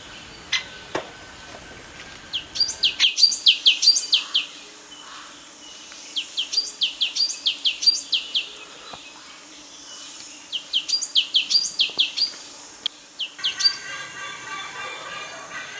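Songbird calling in quick runs of sharp, falling high-pitched chirps: three runs of about a dozen notes each, a few seconds apart. Near the end a different, richer chattering call takes over.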